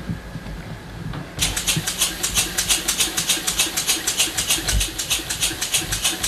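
Small working scale-model steam engine starting up about a second and a half in, then running with a rapid, even chuff of hissing exhaust puffs, about six or seven a second.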